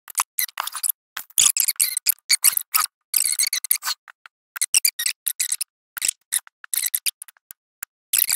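Hot-staple plastic welder melting a heated wire staple into the cracked plastic shell of a rooftop tent: dense, irregular crackling for about four seconds, thinning to scattered clicks after that.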